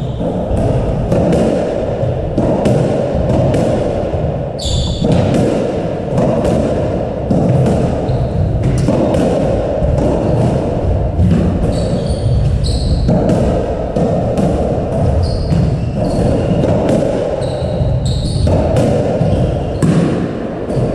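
Squash rally: the ball strikes rackets and the court walls in sharp cracks at an uneven pace, with several short high squeaks from shoes on the wooden court floor, over a steady low rumble.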